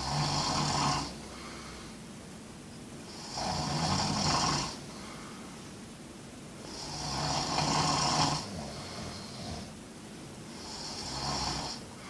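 A sleeping person snoring in a steady rhythm: four long snores, about one every three and a half seconds.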